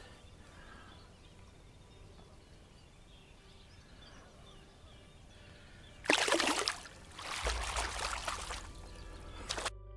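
Faint water trickle, then about six seconds in a loud splash in shallow water as a released rainbow trout kicks free of the hand, followed a second later by a longer stretch of splashing.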